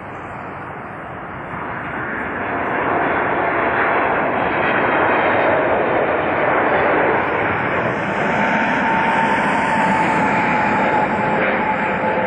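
Boeing 777 airliner passing low overhead on landing approach with its gear down. The jet engine noise builds over the first few seconds to a loud, steady rush, and a steady whine joins it about two-thirds of the way through.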